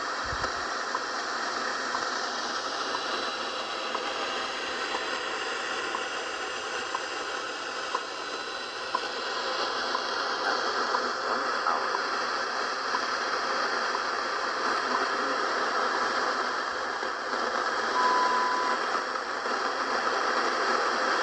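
Static hiss from a Realtone Globe Spanner 2437 transistor radio with no station coming through, with scattered faint clicks and a brief steady whistle about eighteen seconds in.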